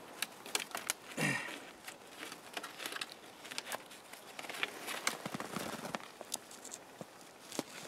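Dry twigs and brush rustling and snapping, with snow crunching underfoot, as a snared red fox is worked free of the branches it is tangled in: scattered light crackles and clicks.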